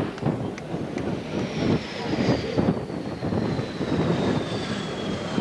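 F/A-18 Hornet jet engines running, a high turbine whine slowly falling in pitch over a choppy low rumble.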